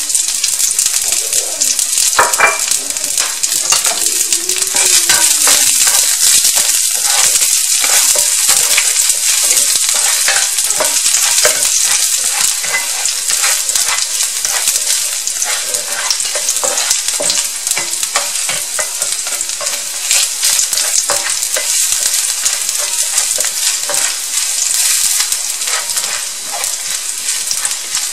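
Chopped garlic frying in hot vegetable oil in a pan: a steady, loud sizzle with fine crackling, as it is stirred with a wooden spatula.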